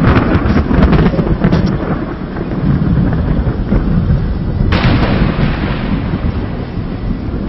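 Thunder from a nearby lightning strike: a sharp crackling clap at the start that rolls on into a long low rumble, with a second sudden loud surge about five seconds in.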